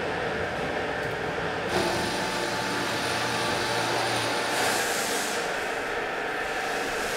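Steady din of stone-working machinery. About two seconds in, a handheld angle grinder with a polishing pad starts on the edge of a granite slab, adding a thin high whine and hiss.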